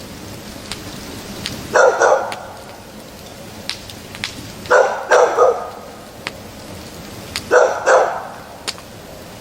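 Dog barking in short runs of two or three barks, about every three seconds.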